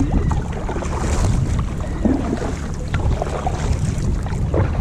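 Wind buffeting the microphone over the wash of sea water against a kayak on open water.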